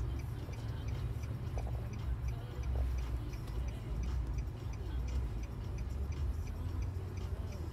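Low rumble of a vehicle heard from inside its cab, with a light, steady ticking about three times a second.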